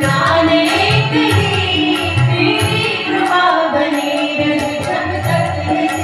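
A woman singing a devotional song to harmonium and tabla accompaniment. The melody glides and bends over the harmonium's held notes, while the tabla keeps a steady rhythm of deep bass-drum strokes.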